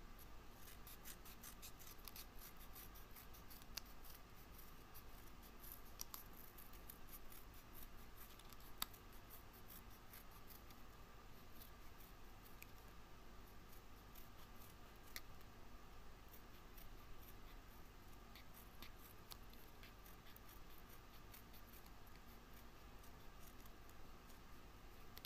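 Scissors cutting small ovals out of folded paper: faint, irregular snips with small clicks of the blades.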